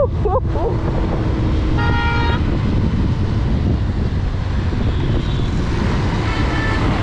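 Motorcycle riding through traffic, its engine and the wind making a steady low rumble, with a vehicle horn honking for about half a second around two seconds in and again, fainter, near the end.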